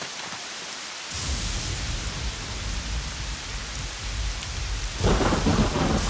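Rain falling steadily. About a second in, a low rolling rumble of thunder comes in and carries on under it. The storm gets louder near the end.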